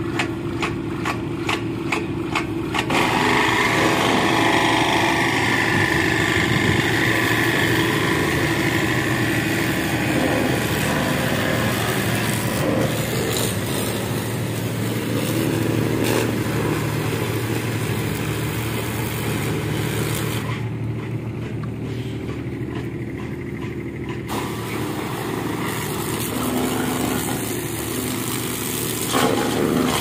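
Pressure washer running steadily with a constant hum, its jet spraying hard onto a forklift's metal body and the gravel beneath. A regular clicking in the first few seconds gives way to the dense hiss of the spray at about three seconds in.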